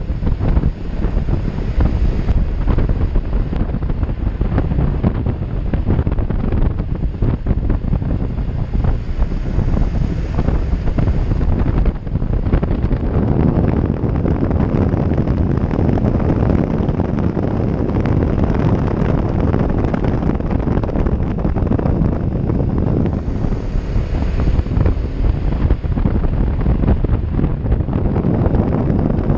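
Steady, heavy wind noise buffeting the microphone on a moving Honda Innova ANF125 step-through motorcycle, with its small single-cylinder four-stroke engine running underneath.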